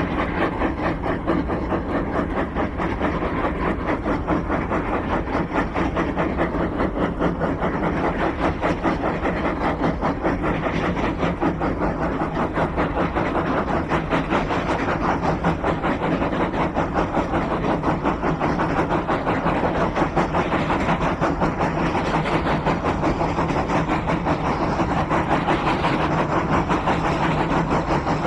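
Exhaust beats of 3 ft 6 in narrow gauge steam locomotives working hard, a quick, even chuffing.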